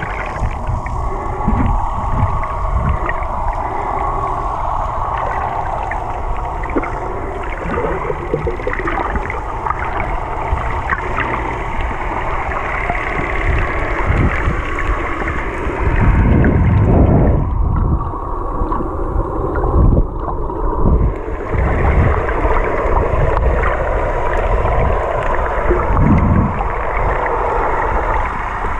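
Muffled underwater noise picked up by a camera held underwater: water rushing and churning against it, with irregular low thumps, loudest a little past halfway.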